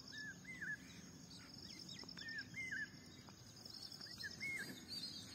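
Faint outdoor ambience: a steady, high-pitched insect trill, with a bird giving short chirps in small groups of two or three.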